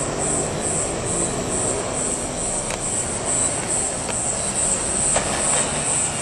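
CAF-built CPTM Série 8500 electric train approaching the station with a steady rumble. Over it, insects chirp in a high pulsing trill about two to three times a second.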